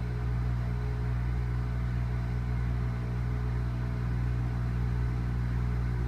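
General Electric front-loading washing machine turning its drum with a light load of three towels, a steady low hum from the motor and drum.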